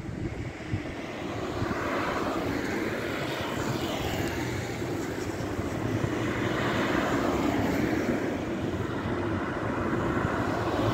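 Steady engine drone that slowly grows louder, with a low hum beneath a rushing noise.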